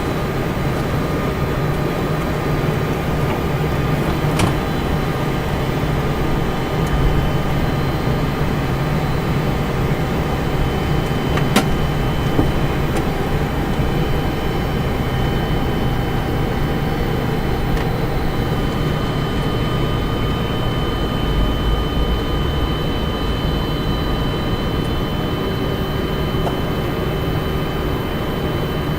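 Steady flight-deck noise of a Boeing 747-400 with its engines running at low power: a low, even hum with several steady whining tones above it, and a couple of faint clicks, at about four and twelve seconds in.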